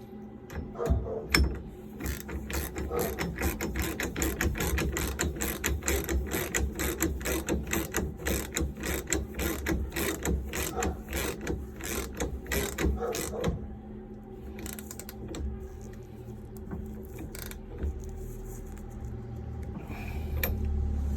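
A half-inch drive ratchet with a 7/8-inch socket clicks in a quick, even run as it tightens the steering-column nut holding a steering-wheel short hub. The clicking stops about thirteen seconds in, leaving a few faint knocks.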